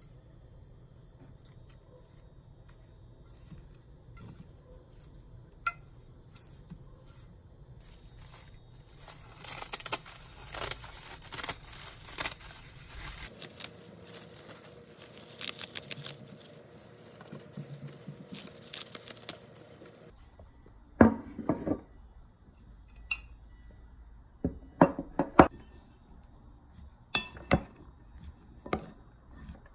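Kitchenware being handled: a stretch of hissing with quick crackles, then several sharp clinks and knocks of dishes and utensils.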